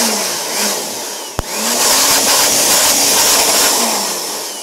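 Jakmister 600 W handheld electric air blower running at full speed, a loud rush of air as its nozzle blasts into a desktop PC case. A short click about a second and a half in; near the end the motor starts to wind down.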